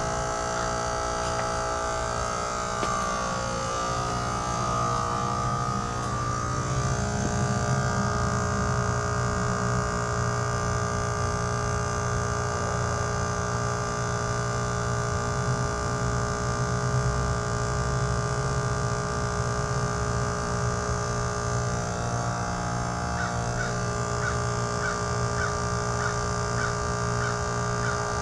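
Trane XR14 heat pump outdoor unit running steadily through its defrost cycle: a constant compressor hum made of several steady tones over a low drone.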